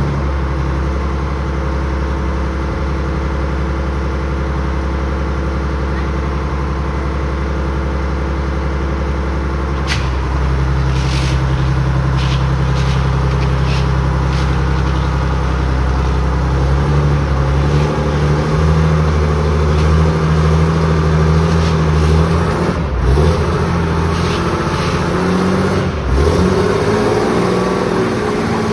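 Engine of an M677 tracked missile transport vehicle running steadily, then run up about ten seconds in. Its pitch rises again in the second half as the vehicle pulls forward on its tracks.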